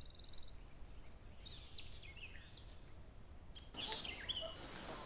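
Quiet rural outdoor ambience with scattered small bird chirps. A high, rapid trill fades out about half a second in, and a few more chirps come after about four seconds.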